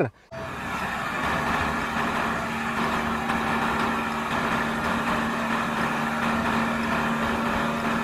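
Diesel engine of a Renault four-axle dump truck running steadily with its tipper body raised for dumping, a constant low hum over the engine noise.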